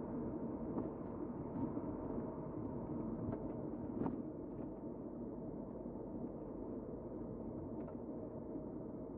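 Steady road and engine noise of a moving car heard from inside the cabin, with a few faint ticks.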